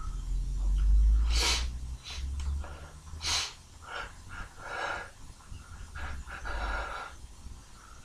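A man's forceful nasal breathing: two strong, sharp sniffs or snorts about a second and a half apart, with breath blowing on the microphone as a low rumble, then a series of quicker, shorter breaths as his nose is tickled to bring on a sneeze.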